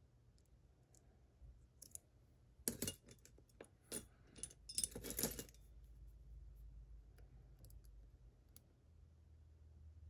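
Small metallic clicks of lock picks in a Mottura Viper cylinder lock, with a cluster of louder clicks and rattles about three and five seconds in as the metal picks are swapped among the tools on the bench.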